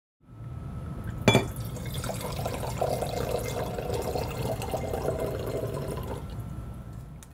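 Wine being poured from two bottles into stemmed wine glasses, a steady splashing pour, with one sharp ringing clink about a second in.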